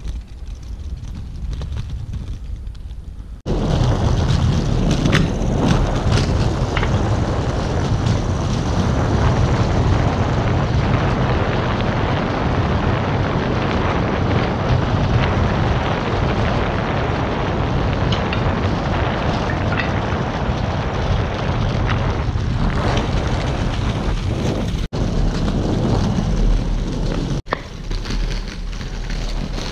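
Inline skate wheels rolling over smooth stone paving, heard close to the wheels: a loud, steady rumble with scattered clicks and wind on the microphone. The rumble jumps up about three and a half seconds in and breaks off briefly twice near the end.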